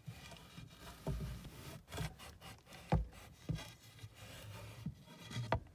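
Scraping and rubbing with a few sharp knocks as a pole with a homemade wire hook is worked against the attic framing and a length of 14-2 electrical cable, trying to snag the cable.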